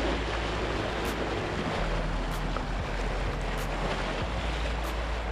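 Waves washing against a rocky shoreline, with wind on the microphone: a steady rushing noise throughout.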